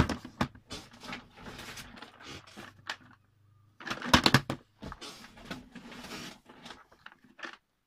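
Plastic storage boxes of DMC embroidery floss being picked up, shown and set down: clattering knocks and rustling. The loudest knocks come right at the start and again about four seconds in.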